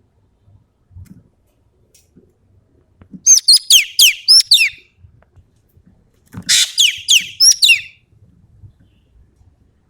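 Common green magpie (ekek keling) calling in two rapid bursts of sharp, high notes that sweep downward, each burst lasting about a second and a half, about three and six seconds in.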